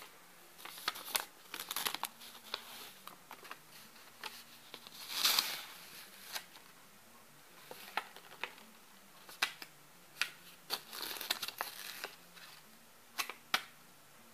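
Paper crinkling and rustling in short, irregular bursts with sharp clicks, as a cat paws at it on a quilt.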